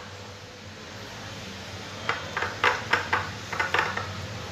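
Silicone spatula stirring a thick avocado-and-egg-yolk paste in a ceramic bowl: a rapid run of short scrapes and taps against the bowl, about four a second, starting about two seconds in and lasting some two seconds, over a low steady hum.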